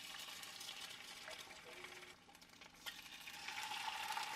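Food sizzling and crackling in a frying pan, faintly, with a light steady tone joining near the end.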